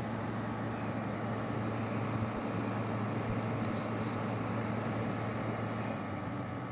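LG ThinQ 8000 BTU window air conditioner running with its compressor on and its fan on high: a steady rush of air over a low hum. About four seconds in come two short beeps from its control panel, and the fan starts to slow near the end as it is switched down to low.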